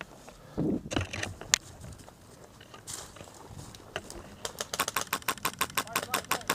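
Airsoft gun firing: a few scattered shots, then from about four and a half seconds in a rapid run of sharp shots at roughly eight to ten a second.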